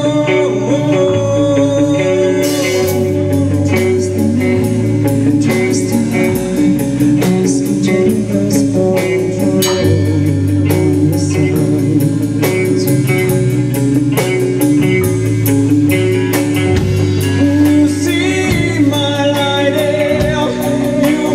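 Live rock band playing loud through a club PA: drums, electric guitars and bass guitar, with a singer.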